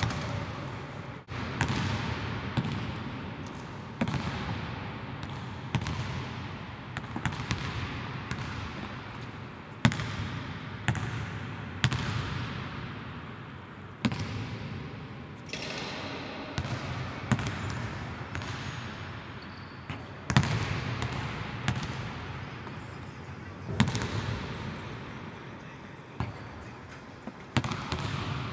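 Basketball bouncing on a hardwood court, sharp thuds every second or two at an uneven pace, each one echoing long through a large empty arena.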